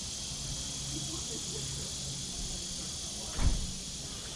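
Steady high-pitched insect chorus, with a faint low hum beneath and a single dull thump about three and a half seconds in.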